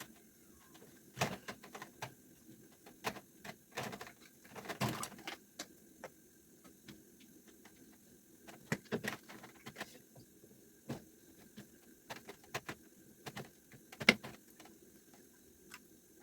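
Irregular clicks, knocks and clatters of cookware and utensils being handled during cooking, with the loudest knock near the end.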